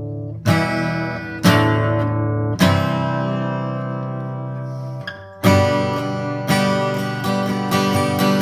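Acoustic guitar strumming chords: three strokes, each left to ring out, then a brief break a little past halfway before the strumming comes back in a steadier rhythm.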